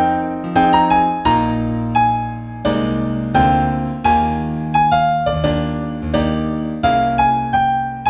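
New age piano music: a slow melody of single struck notes, each fading away, over low held bass notes.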